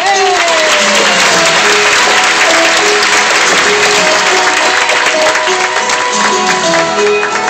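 Audience applauding, breaking out all at once over plucked-string music that keeps playing, then dying down after about five seconds.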